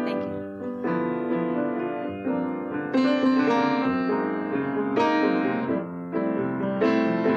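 Solo piano playing: chords struck every second or so and left ringing, with a louder chord about three seconds in.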